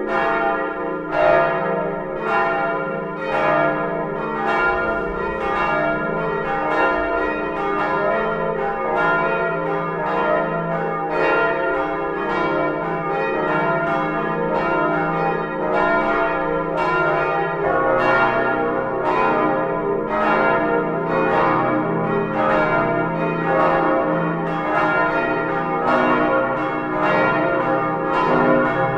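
Swinging church bells of a peal cast in 1947 by the Albert Junker foundry in Brilon, ringing together with overlapping, evenly repeating strikes and long ringing tones, heard up close inside the belfry. A little past halfway a deeper hum joins the sound.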